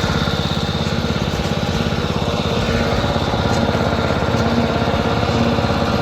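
Small engine of a portable well-drilling rig running steadily, a fast even pulse with no change in speed.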